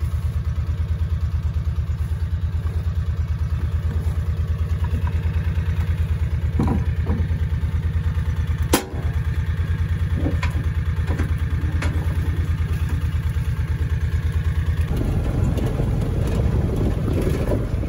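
Small utility vehicle's engine idling with a steady, even pulse, with a few knocks and one sharp clank about nine seconds in as buckets and the tailgate are handled. About fifteen seconds in the engine note turns rougher as the vehicle moves off.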